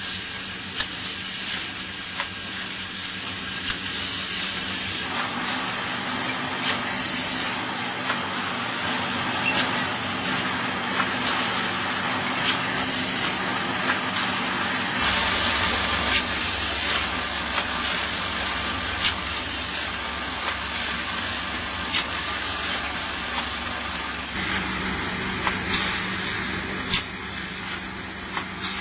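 Automatic pneumatic drilling machine for wooden handles running: a steady motor hum and hiss-like machine noise, with sharp clicks every second or so as it works. The noise changes about halfway through.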